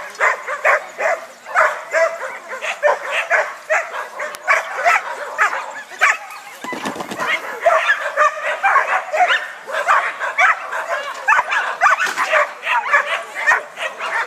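A dog barking rapidly and without a break, about three sharp barks a second.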